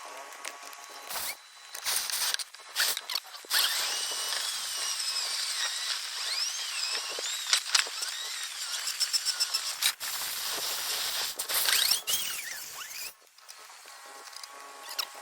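A power drill spins a rotary brush inside a dryer vent duct: a dense scraping rush with squeals that rise and fall in pitch. A few knocks come first, the brushing starts a few seconds in, and it stops shortly before the end.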